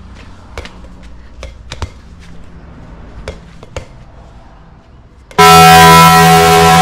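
A few light knocks of a small rubber basketball bouncing off the wall and tiled floor, then a very loud, steady horn blast that starts abruptly about five seconds in and runs for under two seconds.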